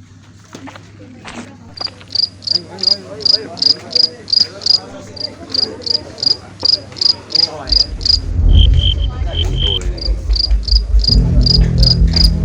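An insect chirping in a fast, very regular pulse of about four high chirps a second, dropping briefly to a lower pitch partway through. A low steady hum underneath grows louder in the second half.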